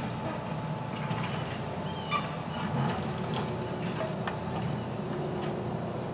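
Ten-ton grapple truck's engine running steadily as its hydraulic knuckle boom works, with a few faint clicks. A bird chirps briefly about two seconds in.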